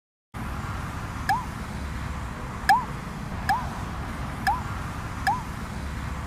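Wind rumbling on the microphone, with about five short squeaky chirps on top, each starting with a click and rising then falling in pitch, a second or so apart. The chirps look like an added cartoon sound effect.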